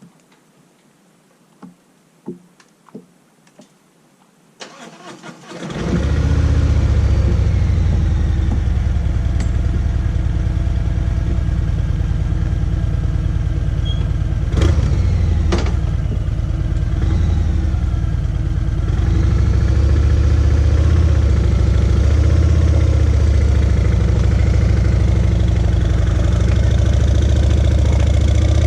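A few faint clicks, then a vehicle engine starts about five seconds in and runs steadily, with a strong low hum and two sharp knocks midway.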